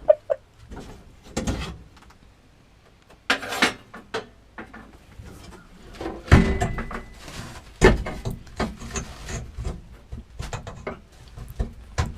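Irregular knocks, scrapes and rubbing of hard objects being moved and handled, with sharper thumps about six and eight seconds in.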